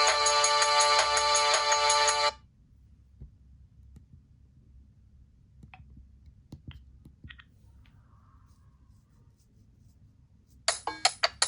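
Motorola RAZR V8 ringtone: a polyphonic melody that stops suddenly about two seconds in. A few faint clicks follow in the quiet, and near the end a quick run of short tones starts up.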